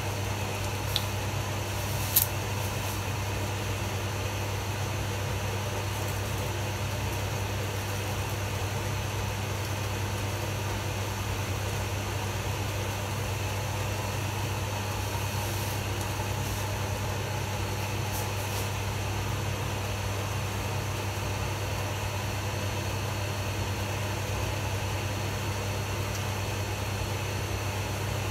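Steady machine hum with a strong low drone, unchanged throughout, and two small clicks in the first few seconds.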